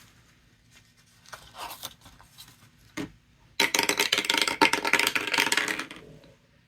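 Felt-tip marker scribbling on paper, coloring in a square with fast back-and-forth strokes for about two and a half seconds, starting a little past halfway. A single sharp click comes shortly before.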